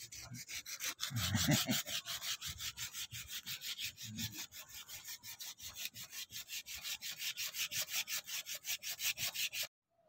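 Hand-abrading of a carved wooden figure: quick, even back-and-forth rubbing strokes, several a second, with a few dull bumps. The strokes cut off abruptly near the end.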